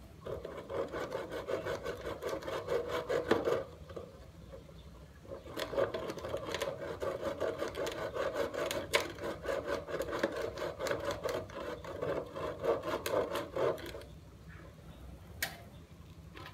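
Hand saw cutting with quick, even back-and-forth strokes, about four a second, in two bouts: a short one at the start, then, after a pause of about two seconds, a longer run that stops a couple of seconds before the end.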